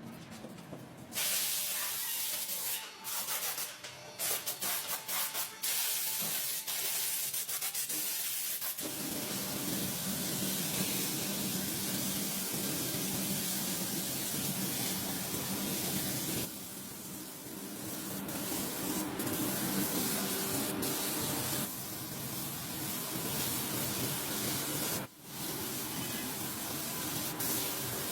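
A hissing power or air tool in use: short spurts of hiss for several seconds, then a steady hiss over a motor hum from about nine seconds in, with a brief break near the end.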